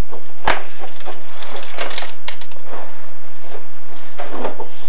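Chimney inspection camera knocking and scraping against the clay flue tiles as it is pushed up the flue: one sharp knock about half a second in, then scattered clicks and scrapes.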